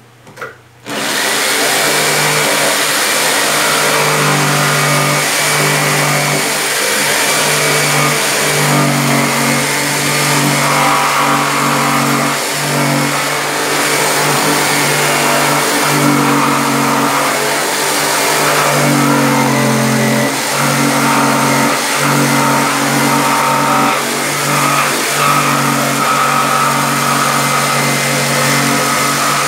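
Black & Decker jigsaw starting up about a second in and running steadily as it saws a handle opening in a speaker cabinet's top panel, with a few brief dips as the blade meets resistance.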